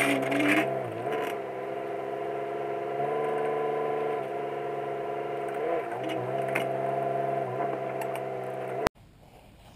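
A steady low-pitched humming drone that wavers briefly in pitch a few times, then cuts off suddenly near the end.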